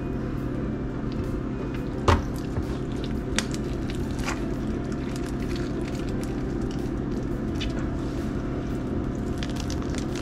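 A steady low hum, with a few sharp clicks and knocks about two, three and a half and four seconds in as a northern puffer is handled and skinned by hand on a wooden cutting board.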